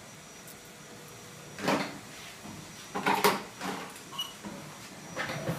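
A grooming comb drawn through an Airedale Terrier's wiry head coat in a few short, scratchy strokes, with quiet gaps between them.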